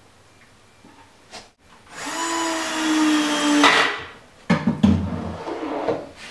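A power drill running for about a second and a half, driving a screw that fastens a metal ball-bearing drawer slide to the side of the cabinet. A few knocks and metallic clatters follow as the slide is handled.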